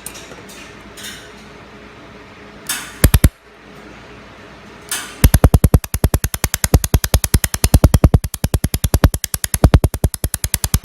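Handheld laser welding machine firing on stainless steel in rapid, even pulses, about nine sharp pops a second, starting about five seconds in after a brief double pop a little before.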